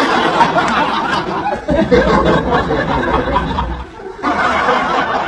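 A group of young people laughing and chattering loudly, cut off briefly about four seconds in before more laughing voices.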